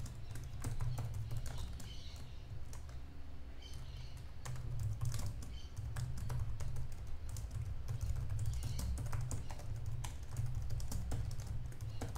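Typing on a computer keyboard: a rapid, irregular run of keystroke clicks that thins out for a moment about three seconds in, over a steady low hum.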